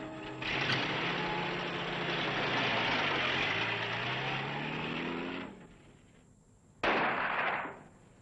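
A vehicle engine revs under a loud rushing noise, its pitch dipping and then rising, and cuts off after about five seconds. About seven seconds in comes a sudden loud blast that dies away over a second.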